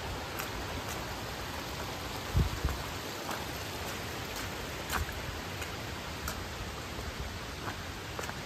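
River water rushing over rocks: a steady, even rush with scattered small splashes, and a brief low thump about two and a half seconds in.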